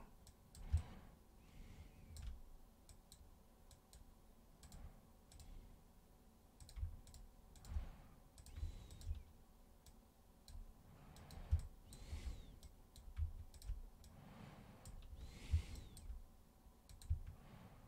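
Computer mouse clicking at an irregular pace, faint, with soft low knocks now and then.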